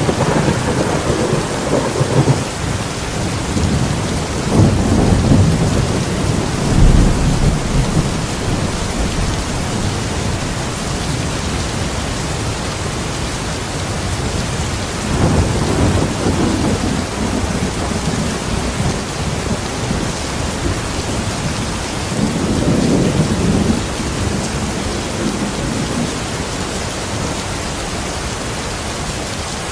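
Steady heavy rain falling, with rolling thunder rumbling in several low swells: near the start, again about four to eight seconds in (the loudest), around fifteen seconds, and once more around twenty-two seconds.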